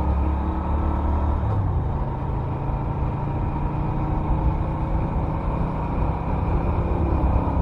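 Norton Commando 961's parallel-twin engine running steadily, its note shifting about a second and a half in.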